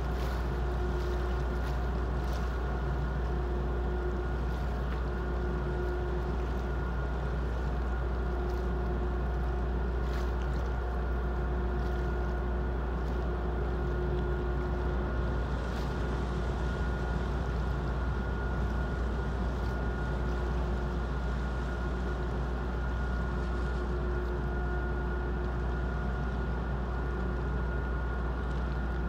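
Large car ferry's engines and machinery running steadily while berthing: an even low rumble with a faint constant whine.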